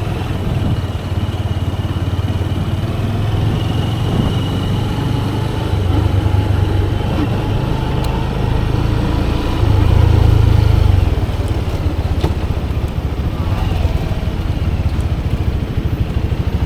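Motorcycle engine running while riding, louder for about a second around ten seconds in.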